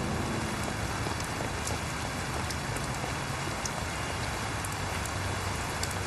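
Steady rain falling on pavement, with a few scattered drips.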